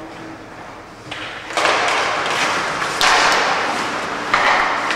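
Ice hockey play: skate blades scraping across the ice in three loud bursts, the first about a second and a half in, with knocks of sticks and puck.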